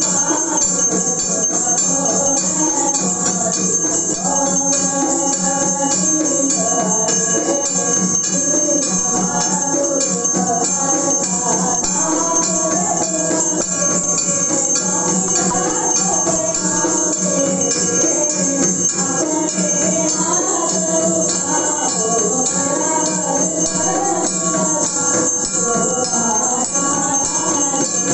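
Voices singing a Hindu aarti hymn, with ringing bells and jingling percussion kept up in a fast, steady rhythm throughout.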